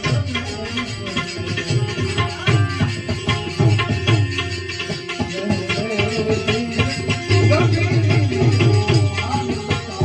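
Devotional bhajan music with tabla drumming, its deep bass strokes recurring throughout, over sustained melodic instrument tones.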